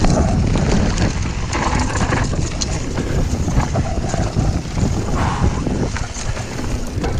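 Mountain bike riding down a woodland dirt trail, heard from a camera on the rider: wind rumbling on the microphone, with tyre noise and a constant clatter of small knocks and rattles from the bike over the bumps.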